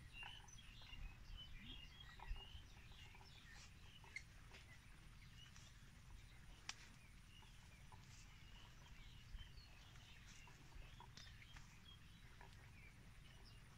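Faint outdoor ambience: small birds chirping here and there over a steady low rumble, with a few scattered clicks.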